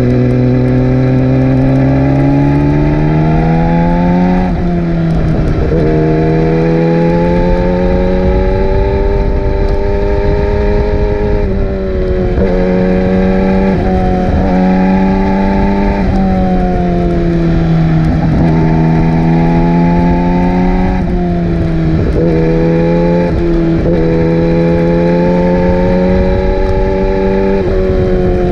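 Yamaha R6 sport bike's inline-four engine revving hard under acceleration. Its pitch climbs steadily, then falls back sharply, over and over, as it works through the gears.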